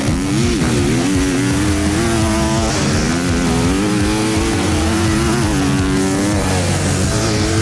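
Motocross dirt bike engines running and revving on the track, pitch rising and stepping, mixed with background music.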